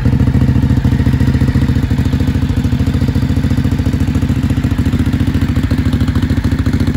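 Ducati Hypermotard's V-twin idling steadily through an aftermarket SC-Project exhaust, with an even, rapid beat.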